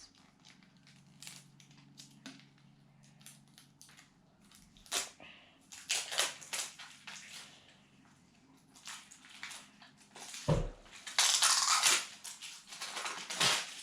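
Crinkly plastic packaging being handled and torn open by hand: irregular rustling and crackling with small clicks, a low knock about ten and a half seconds in, and the loudest burst of crinkling just after it.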